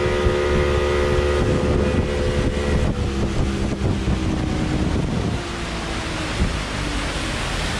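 Outboard motor of a small open motorboat running at speed, with wind buffeting the microphone and water rushing past the hull. About three seconds in, the motor's steady tone drops slightly in pitch and grows fainter under the wind and water noise.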